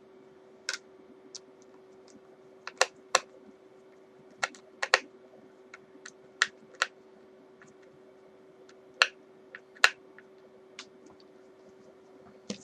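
Irregular sharp clicks and taps of a screwdriver and small screws working on a guitar's pickguard, about a dozen in all with no steady rhythm, over a faint steady hum.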